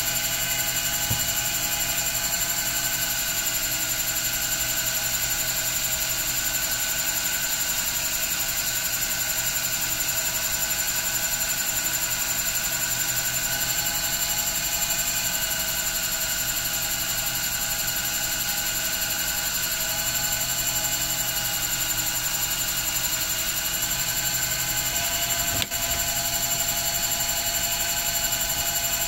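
Small benchtop metal lathe running steadily at speed, its motor and spinning chuck giving a constant whine made of several fixed tones. One brief click comes near the end.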